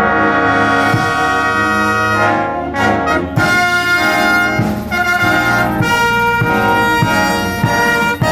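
Concert band playing, with the brass section to the fore in loud held chords and short drum strokes about once a second.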